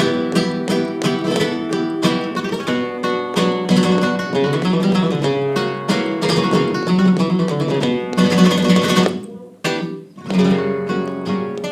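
Flamenco guitar playing solo in farruca style, with strummed chords and plucked runs. It drops away briefly near the end, then comes back in.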